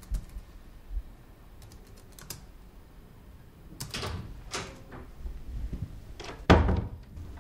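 Typing on a laptop keyboard: scattered key clicks with pauses between them. A louder noise lasting about half a second comes about six and a half seconds in.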